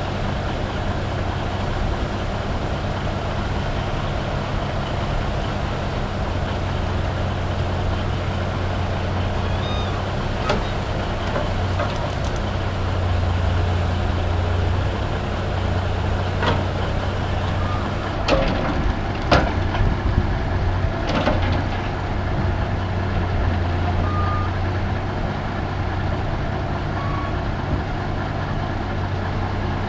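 Heavy diesel machinery running steadily: a Cat log loader working its grapple beside a loaded logging truck. A scatter of sharp clanks and knocks comes between about ten and twenty-one seconds in.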